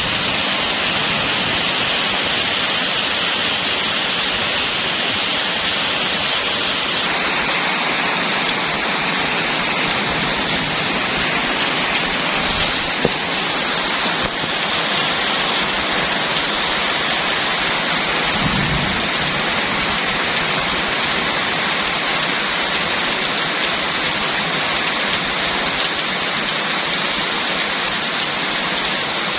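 Heavy rain falling steadily, a dense, even hiss of drops with no letup.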